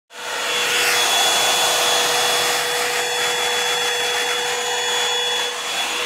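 Revlon One-Step hair dryer brush running steadily: a rush of air with a steady whine from its motor.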